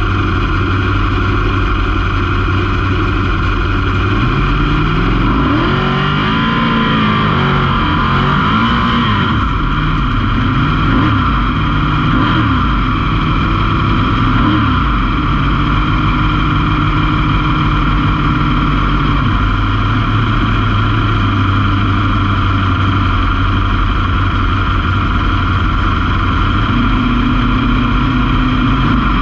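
Drag race car engine running steadily, with several quick revs rising and falling about five to fifteen seconds in, then settling back to a steady run.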